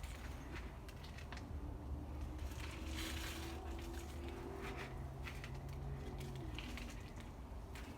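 Potting soil being filled and pressed in by hand around a cup inside a plant pot: scattered soft rustles and crunches over a faint low hum.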